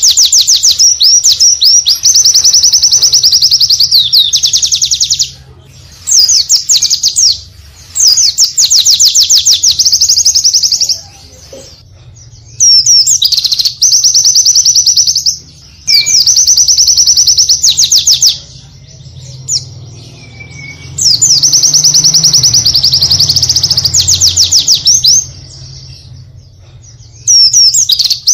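White-eye (pleci) song: loud, high-pitched phrases of rapidly repeated notes, each burst lasting two to three seconds with short pauses between, in the fast 'tembakan' style.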